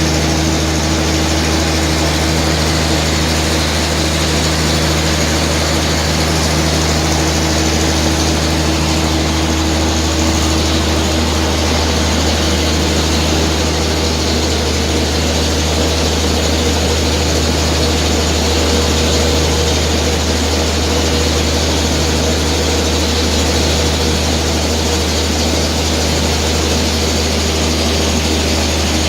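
Biomass flash dryer unit running: a steady, loud machinery hum with a deep drone under a broad rushing noise, like blowers and motors at work.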